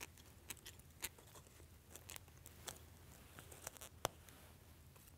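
Faint, scattered clicks and light rustling of small fishing tackle being handled: swivels, a sinker and leader line clicking in the fingers, the sharpest click about four seconds in.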